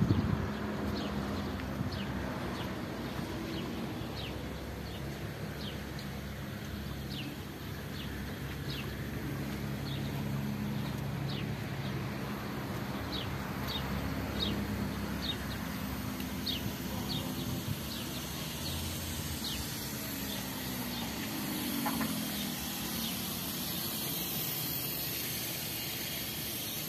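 A steady motor or engine hum from somewhere off, shifting in pitch about twenty seconds in, with a bird chirping over it in short, repeated calls.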